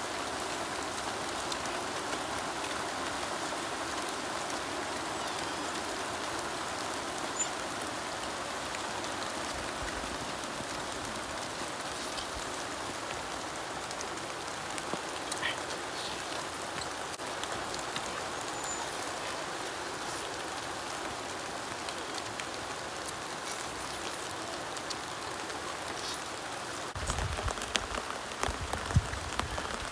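A steady hiss of outdoor background noise with a few faint scattered clicks. Near the end come low rumbles and thumps.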